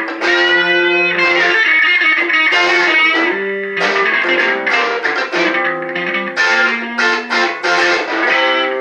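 Electric guitar being played: a run of held notes and chords, each ringing for up to a second or so before the next.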